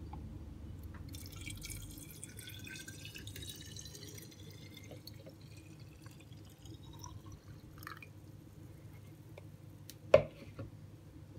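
Water poured from a plastic jug into a glass bottle, the filling tone rising steadily in pitch as the bottle fills. A single sharp knock about ten seconds in, the loudest sound.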